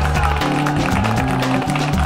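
Upbeat background music with a bass line and a steady beat.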